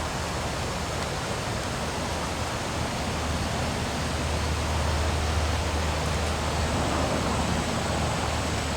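Steady rain hiss with a low rumble underneath that swells a little about halfway through.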